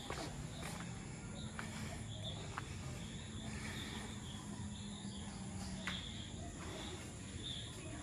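Garden ambience of insects, likely crickets, with a steady high buzz and short chirps repeating every second or so, over a low steady hum.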